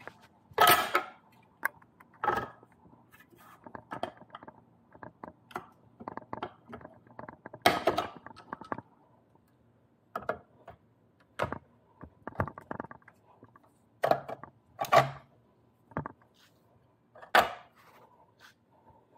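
Irregular metallic clinks and knocks of a Vsett 11+ electric scooter's rear hub-motor wheel, axle, washers and fender being handled and fitted into the swingarm, with a few louder knocks spread through.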